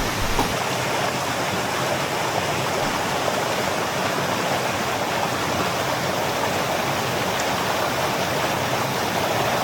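Mountain stream rushing over rocks: a steady, unbroken water sound.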